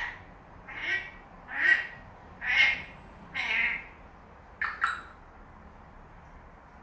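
African grey parrot imitating a human cough, copied from its owner's cough: five coughs about a second apart, then two quick sharp sounds close together near the end.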